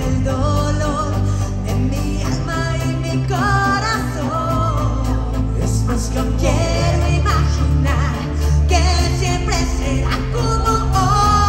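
Live pop music: sung lead vocals with vibrato over a band with a heavy bass line.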